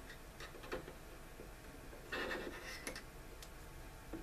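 Faint handling noises of plastic model-kit parts and a needle-tipped glue tube: a few light plastic clicks and ticks, and a brief rustling scrape about halfway through.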